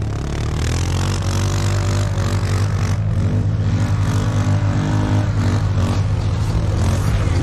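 ATV's 570 cc single-cylinder four-stroke engine running under load, its pitch rising and falling a little and getting slightly louder, with a rough hiss over it.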